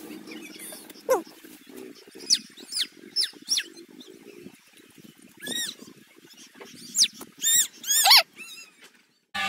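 Goats and sheep of a grazing flock bleating: a string of short, high-pitched calls, coming thicker and closer together in the second half. The sound cuts off abruptly just before the end.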